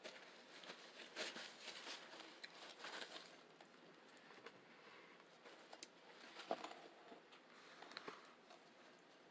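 Chips being bitten and chewed, close up: two spells of quick crackly crunching with small sharp clicks, the second starting a couple of seconds after the first ends.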